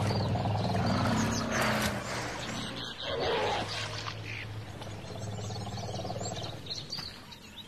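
Lion roaring in long, low, drawn-out moans, loudest in the first two seconds, with birds chirping.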